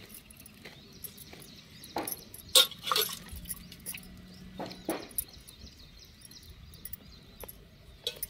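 A goat being milked by hand into a steel pot: faint squirts of milk with a few sharp clinks from bangles on the milker's wrists and the metal pot, some bright clinks scattered through.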